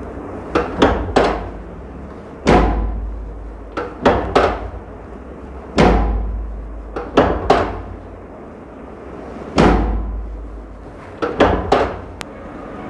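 Sharp knocks and heavy thuds in a repeating pattern: two or three quick knocks, then one heavier thud with a low boom, about every three to four seconds.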